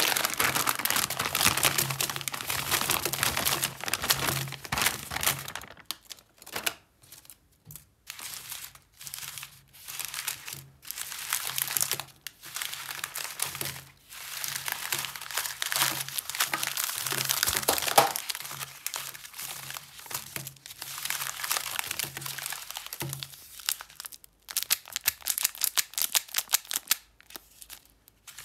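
Plastic snack wrappers crinkling and rustling as a bag of small wrapped wafer bars is handled, shaken out and picked through. The sound comes in irregular bursts with short pauses.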